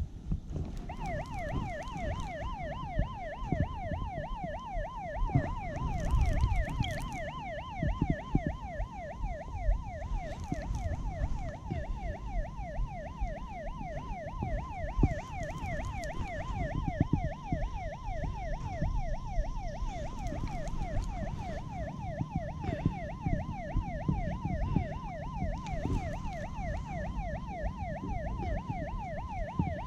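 A siren-like yelping tone, sweeping up and snapping back about four times a second without a break, over low rumbling noise and occasional knocks.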